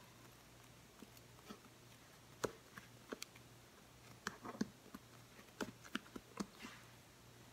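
Faint, irregular soft taps and pats of fingertips pressing a ball of bread dough flat against a plastic cutting board.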